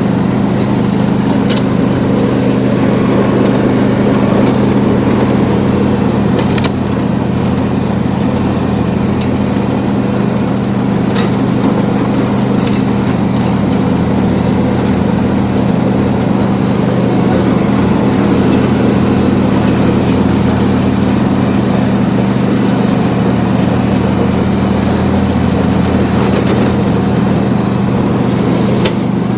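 Riding lawn mower's engine running steadily while mowing grass, heard up close from the driver's seat, with a few short sharp clicks.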